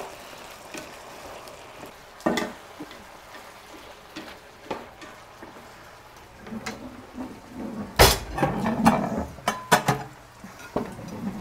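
Kitchen cupboard and dishes clattering: a single knock about two seconds in, then a loud sharp clack followed by a run of quick clicks and knocks in the last few seconds.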